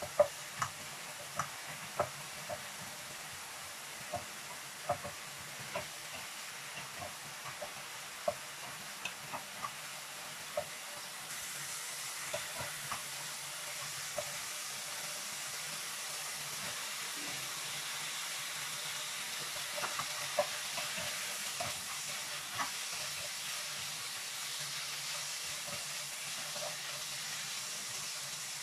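Diced pork and garlic sizzling in oil in a nonstick frying pan, with a wooden spatula tapping and scraping the pan as the meat is stirred. The sizzle grows louder and hissier about eleven seconds in, and the taps become fewer.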